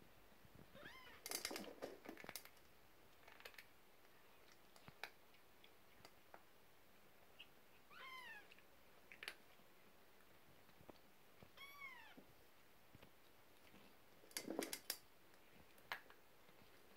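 Persian kittens mewing faintly, about three short high-pitched mews that fall or arch in pitch, with soft clicks and knocks in between.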